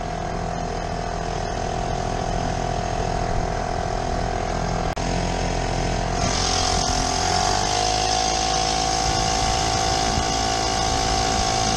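Vintage Elgin two-stroke outboard motor running steadily under way. After a brief break about halfway, the rush of water gets louder and the engine's pitch rises a little, then holds.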